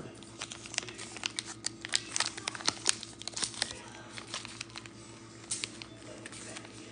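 Rapid, irregular crinkling clicks close to the microphone. They are dense for about the first four seconds, then thin out to a few, over a faint steady hum.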